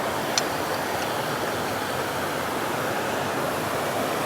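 Steady rush of a waterfall, with one brief click about half a second in.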